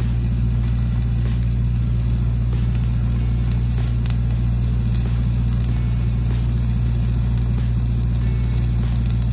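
Flux-cored arc welding: the arc gives a steady crackling sizzle over the constant low hum of the Red-D-Arc 300D engine-driven welding machine running.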